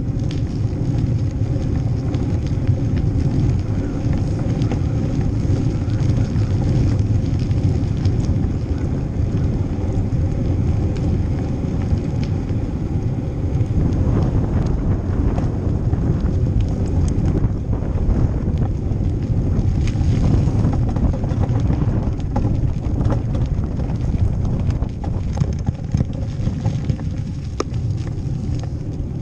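Steady low rumble and wind noise on a bicycle-mounted GoPro's microphone while riding over pavement, with scattered small clicks and rattles from the bike.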